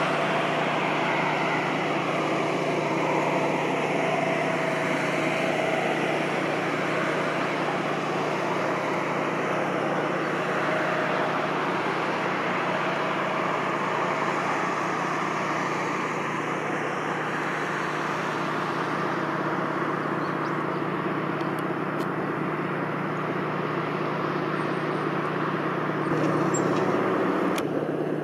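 Steady low engine drone over a continuous outdoor noise haze, swelling slightly near the end.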